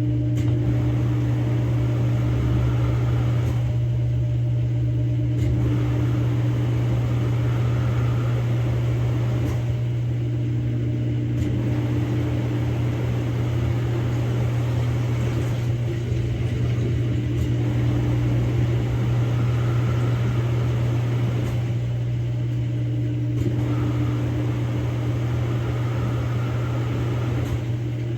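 Samsung Grande AI drum washing machine on its spin-only cycle, the drum spinning with a loud, steady hum that swells and eases about every six seconds.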